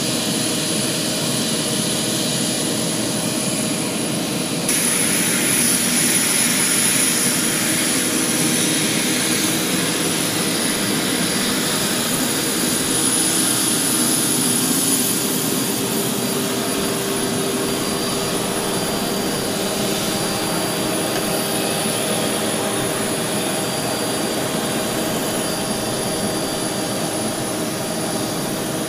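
Steady jet-turbine noise: a continuous loud rush with a high whine over it, stepping up a little about five seconds in.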